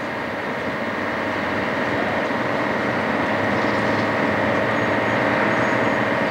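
Film snow-effect cannon blowing artificial snow: a steady rush of air with a constant whine, growing a little louder over the first couple of seconds and then holding level.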